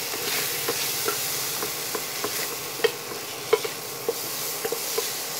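Spatula stirring a spiced onion-tomato mixture frying in a stainless steel pan: a steady sizzle, with irregular taps of the spatula against the pan and two louder knocks around the middle.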